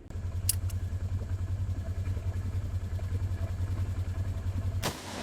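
An engine idling with a fast, even low pulse, which cuts off abruptly near the end.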